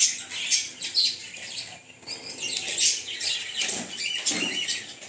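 Small birds chirping repeatedly, short high-pitched calls coming one after another.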